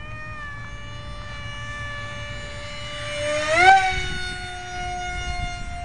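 Electric motor of a scratch-built RC F-18 foam jet flying overhead: a steady whine that climbs in pitch and gets louder about three and a half seconds in as the motor speeds up, then holds at the higher pitch. Low wind rumble on the microphone underneath.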